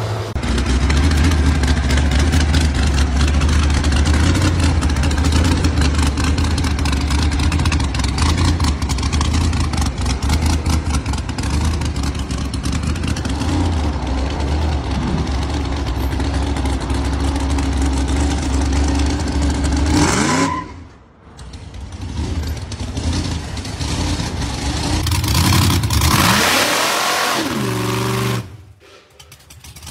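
A Caterpillar-diesel-powered rat rod runs steadily under load as it drives, its engine a loud, even drone. After a brief break, a supercharged hot rod engine revs up and down, with a loud hiss as the car spins its rear tyre in a smoky burnout.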